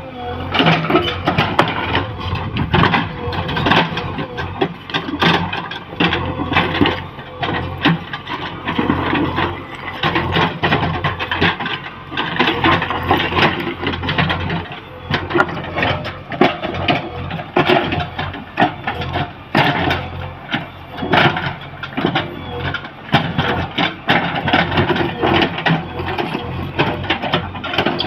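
JCB excavator's diesel engine working steadily under load, with frequent clanks and knocks of the bucket and stone as it levels rocky ground.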